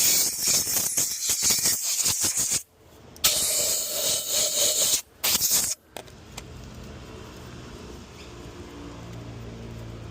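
Compressed air from a blow gun hissing in three blasts over the first six seconds, cleaning vacuum parts: a long blast, a second after a short pause, then a brief one. After that only a quieter steady hum remains.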